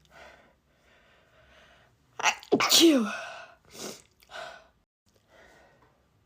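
A person's allergy sneeze, a single loud 'achoo' about two and a half seconds in, with a sharp intake of breath just before it and its pitch falling at the end. Two short breaths follow, then quiet breathing.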